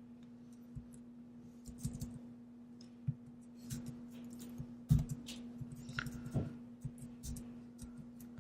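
Scattered computer keyboard keystrokes and clicks over a steady low electrical hum, with one louder knock about five seconds in.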